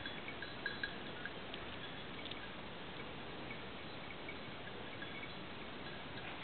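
Faint, steady open-air hiss, with a few short, high tinkling ticks in the first second and a half.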